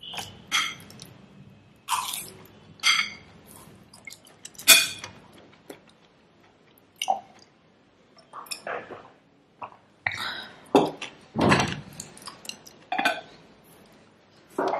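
Metal spoon clinking and scraping against a ceramic plate while eating, a dozen or so separate sharp strikes irregularly spaced, some of them ringing.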